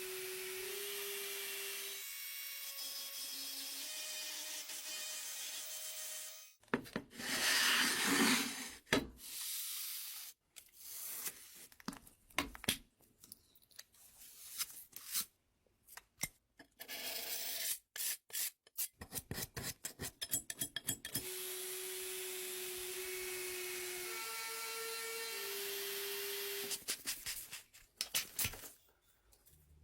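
Workshop restoration work: a steady motor tone that steps in pitch a few times, a loud stretch of rough scraping about seven seconds in, then a run of irregular clicks and knocks, and later the stepped motor tone again.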